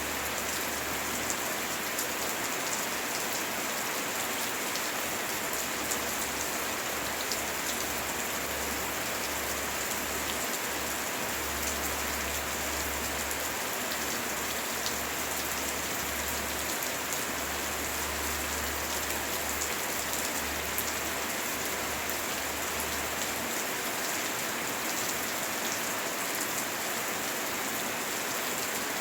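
Steady heavy rain falling, a dense even hiss with scattered drops ticking.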